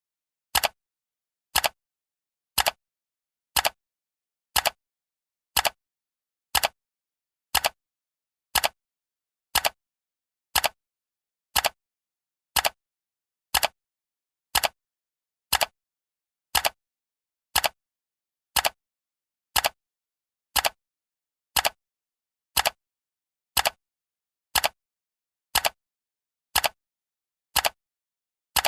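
Clock-tick sound effect of a countdown timer: one short, sharp tick every second, evenly paced, with silence between ticks.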